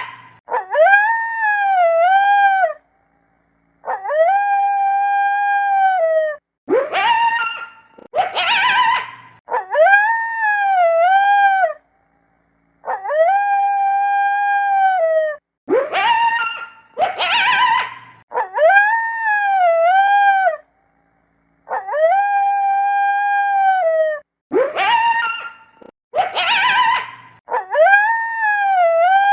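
Wolves howling and yipping: long, steady howls that waver and dip at the end, alternating with clusters of short, shrill yips. The same sequence repeats about every nine seconds.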